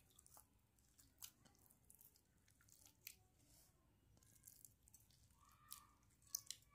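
Sequin slime being squeezed and kneaded by hand in a glass dish: faint, irregular sticky pops and clicks.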